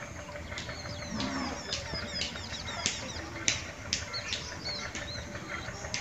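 Ducks preening and ruffling their feathers, a string of short feather rustles and flaps, while small birds chirp quickly and high in the background.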